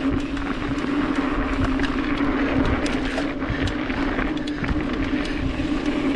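Trek Fuel EX 5 full-suspension mountain bike rolling fast over hard-packed dirt singletrack: a steady rushing rolling noise with a constant low hum, and many small ticks and rattles from the bike over the rough ground.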